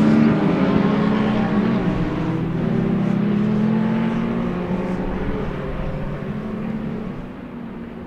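Several race cars, among them a Ford Sierra RS500 with its turbocharged 2.0-litre four-cylinder, running away down a straight, their engines fading steadily into the distance.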